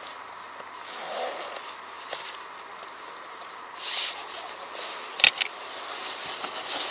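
Handling noise of a hard plastic fishing-rod tube, with rustling of dry grass and clothing and a sharp click, then a softer one, about five seconds in.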